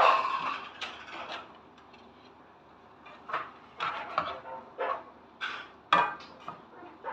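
Cooking utensils knocking and clinking against a pan and bowl, a few separate strikes, with a quiet gap before a run of knocks in the second half.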